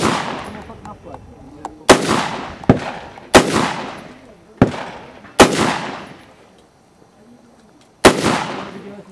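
Rifle shots fired in a course of fire, each followed by a long, fading echo. Five shots come in quick succession from about two seconds in, then after a pause one more shot near the end.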